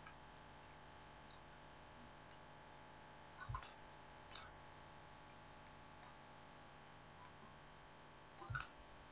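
Faint computer mouse clicks, scattered irregularly, with two louder bunches of clicks about three and a half and eight and a half seconds in, over a faint steady hum.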